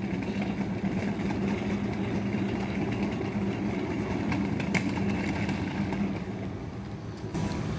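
Steady low hum of machinery running in a metal fabrication shop, with a few light footsteps on the concrete floor.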